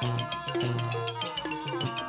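Thai piphat mon ensemble playing at a quick, steady pulse: rapid struck melody notes over drums, with held low pitched notes beneath.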